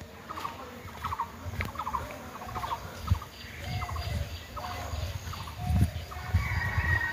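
Poultry calling in short, rapid rattling bursts that recur every half second or so, over dull low thumps.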